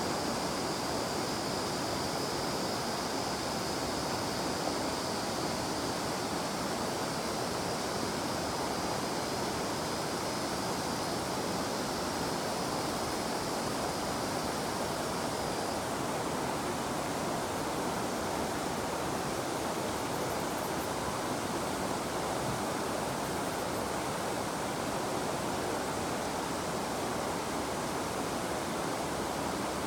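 River water flowing steadily, with a cicada's even, high buzz over it that stops about halfway through.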